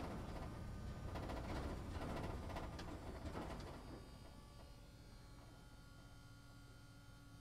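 Cabin noise inside a London double-decker bus: rumble with light rattles for about four seconds, then it drops off, leaving a steady electric hum.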